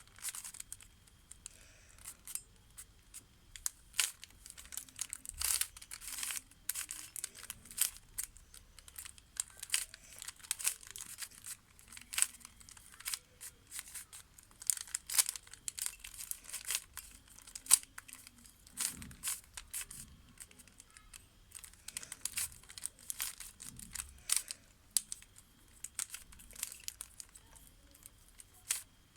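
Plastic Rubik's cube being twisted by hand: irregular runs of quick clicks and clacks as the layers turn, with short pauses between runs.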